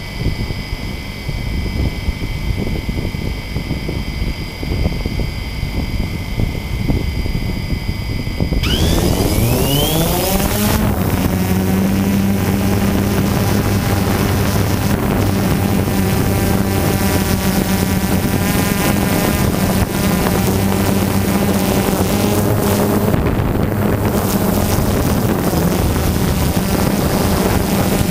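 Quadcopter drone on the ground, heard from a camera mounted on it, with wind noise on the microphone and a faint steady high whine. About eight seconds in, its motors and propellers spin up with a rising whine. They settle into a steady, louder propeller buzz as the drone lifts off and climbs.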